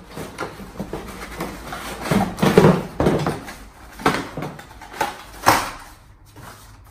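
Cardboard packaging being handled: a folded cardboard insert is pulled out of a box and turned over, with a run of irregular scrapes, rustles and light knocks. The sharpest comes about five and a half seconds in.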